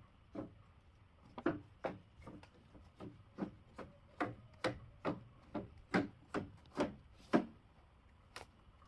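Hand tool rasping on wood in a run of short, even strokes, about two and a half a second, with one more stroke near the end.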